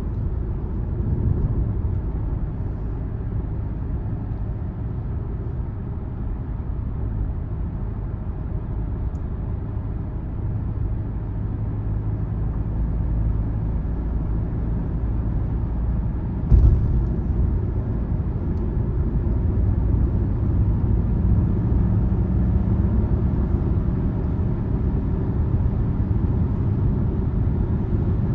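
Car driving along a road: a steady low rumble of engine and tyre noise with a faint hum, growing slightly louder in the second half. A single sharp thump comes a little over halfway through.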